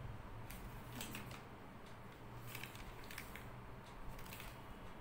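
Quiet rustling and crinkling of a sheet of paper being handled, in several short, crisp rustles at irregular intervals.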